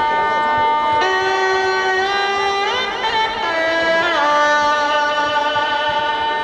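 Instrumental music of long held notes that slide from one pitch to the next, in the manner of a bowed string instrument.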